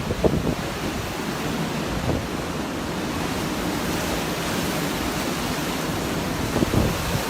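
Storm-force wind blowing hard, a steady loud rush with a few low thumps of gusts buffeting the microphone.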